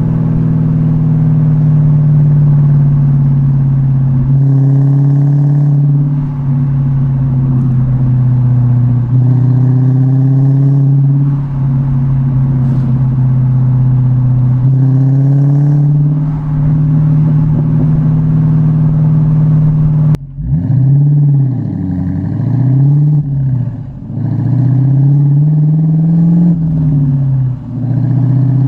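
Dodge Challenger R/T's 5.7-litre Hemi V8 through an H-pipe, Dynomax Race Bullet exhaust with the valves deleted, droning at a steady engine speed. About two-thirds of the way in the sound drops suddenly, then the pitch falls and rises several times as the revs come down off throttle, with a few crackles.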